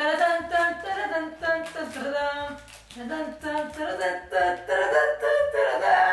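Singing: a voice carrying a melody over a backing track with a bass line.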